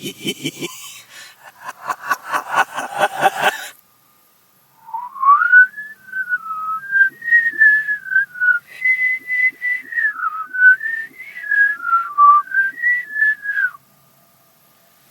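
A person whistling a short tune played in reverse: one clear tone stepping and sliding up and down for about nine seconds, then cutting off sharply. It follows a few seconds of rapid pulsing vocal sounds.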